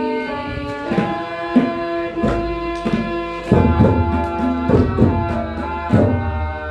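Indian instrumental music: tabla drumming with deep, pitch-bending bass strokes under a sustained melody instrument playing held notes that step from pitch to pitch.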